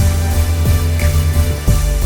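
Background music: electronic music with a steady beat and bass drum strokes about twice a second.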